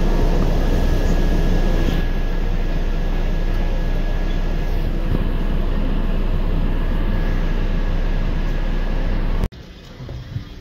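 Steady engine and road rumble inside a moving city bus, with a faint high steady whine. It cuts off abruptly near the end, leaving a much quieter sound.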